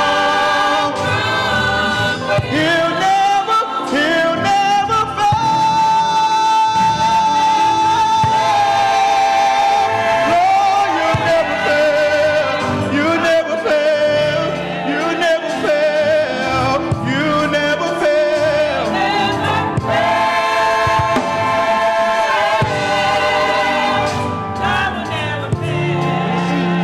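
Gospel choir singing, with one long held note about a quarter of the way in.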